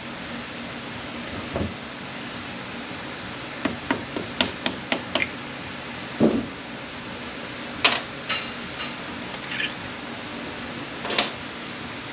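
Sharp metal knocks and taps on an A650E automatic transmission under disassembly, working a stuck part loose: a quick run of about six taps a few seconds in, a duller thump soon after, then a few scattered knocks.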